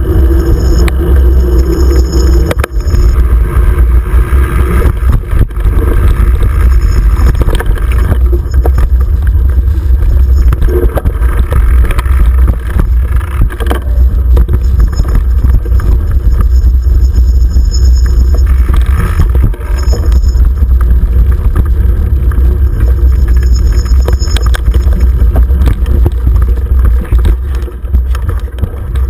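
Heavy wind rumble and rattling from a bike-mounted action camera on a mountain bike riding over dirt singletrack, with frequent knocks from bumps in the trail.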